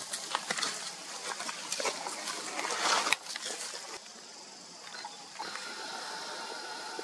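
Leaves rustling and twigs crackling as a golden langur pulls at branches to feed, growing loudest just before it cuts off about three seconds in. After a quieter pause, faint steady high tones from the surrounding forest.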